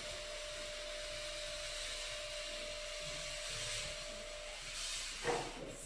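Fog machine blasting a jet of fog: a steady hiss over a faint pump hum, with a brief louder rush about five seconds in, then it cuts off.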